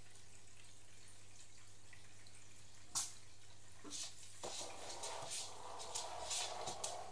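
Aquarium water trickling and dripping over a steady low equipment hum. A sharp click comes about three seconds in, and in the last few seconds a run of clicks and scratchy noise.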